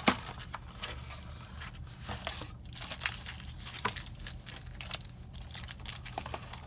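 Packaging of a trading-card prerelease kit being torn open and crinkled by hand: an irregular run of crackles and rips, with a sharp one right at the start.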